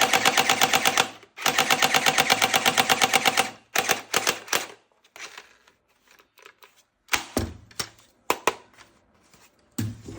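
Toy gun's automatic-fire sound: two bursts of rapid, evenly spaced shots, about eight a second, the second ending a little under four seconds in. Scattered single clicks follow.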